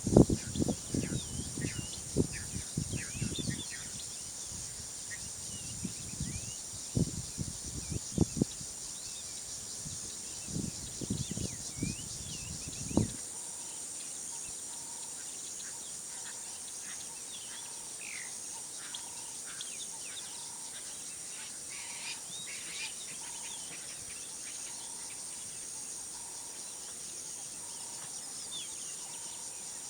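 Bush ambience: a steady high-pitched insect drone with scattered bird chirps. Irregular low thumps and knocks come through the first half and stop about thirteen seconds in. After that a soft note repeats about once a second.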